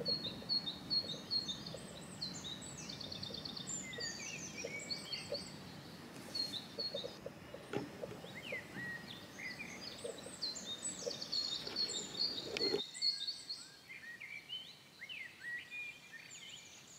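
Small songbirds chirping and trilling, with many quick repeated notes and short rising and falling calls, over a low steady outdoor background noise that drops away near the end.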